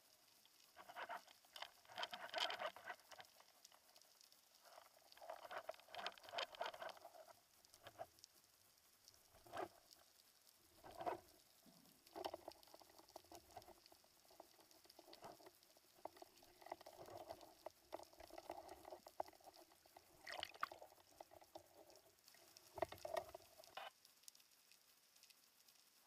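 Faint underwater crackling with sharp clicks and knocks in irregular bursts, picked up through the camera's underwater housing as it is handled and moved during the dive.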